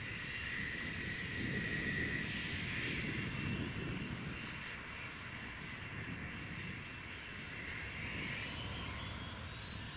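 Aircraft engines running: a steady rumble under a high, steady whine that is loudest about two to three seconds in, with a second whine rising in pitch near the end.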